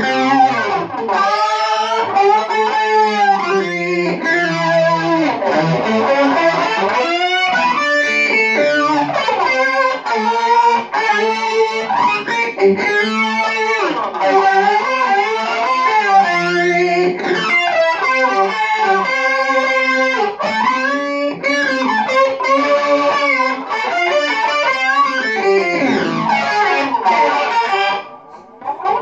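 Electric guitar played through effects pedals: a continuous run of notes whose pitch swoops up and down in glides, dropping away briefly near the end.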